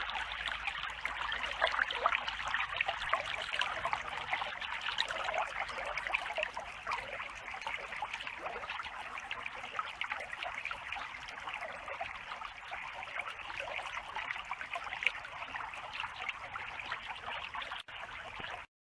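Clear creek water trickling and babbling over stones, a steady splashing rush that cuts off suddenly near the end.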